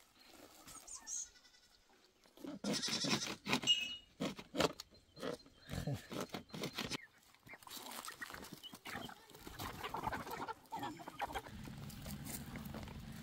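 Knocks and clatter of a plastic crate being handled for a few seconds, then a herd of goats, with a goat bleating near the end.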